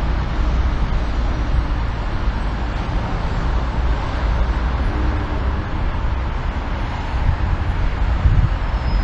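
Steady road traffic noise: a continuous low rumble of engines and tyres with no single vehicle standing out.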